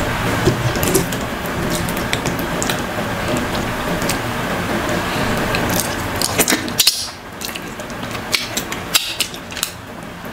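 Close-up eating sounds of fufu and sticky ogbono soup eaten by hand: wet squelching as fingers work through the soup and fish, then, after a bite a little past halfway, chewing with many sharp wet mouth clicks and smacks.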